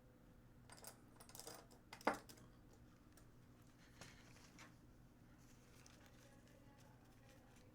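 Near silence with a few light clicks and taps of small objects handled on a workbench, the sharpest about two seconds in.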